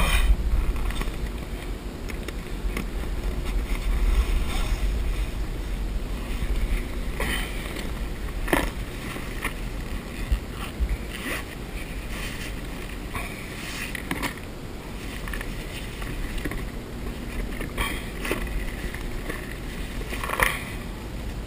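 Steady low wind rumble on the microphone, heaviest in the first few seconds, with a handful of short sharp knocks and clicks scattered through it.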